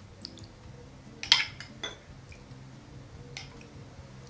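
A metal spoon clinking against small glass bowls: one sharp clink about a second in and a couple of lighter taps after, over faint background music.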